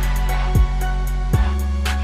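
Hip-hop style intro music with a deep bass line and a drum beat, its kick drum dropping in pitch on each hit.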